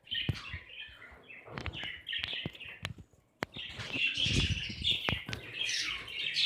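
Caged budgerigars chirping and chattering continuously, with scattered sharp clicks and a brief lull about three seconds in.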